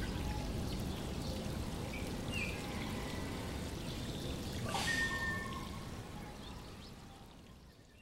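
Flowing water, a steady trickling rush with a few faint short whistles over it, fading out over the last few seconds.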